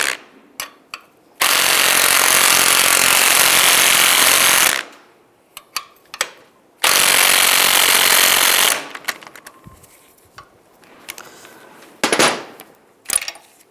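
Impact wrench driving the nut onto a new door hinge pin, in two long runs of rattling hammering and a short final burst near the end.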